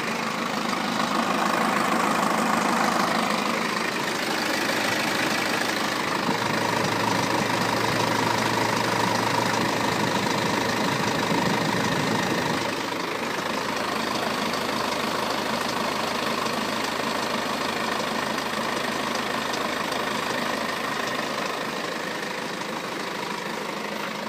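BMW F10 520d's four-cylinder diesel engine running steadily with a noise that the owner puts down to the timing chain. The low part of the sound drops a little about halfway through.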